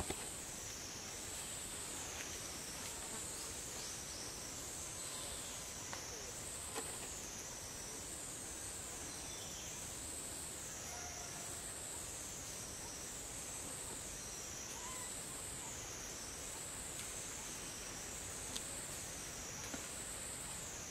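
A chorus of cicadas droning high-pitched and continuously, the pitch rising and falling in a slow, regular cycle, with a few faint snaps, likely twigs under the monkeys.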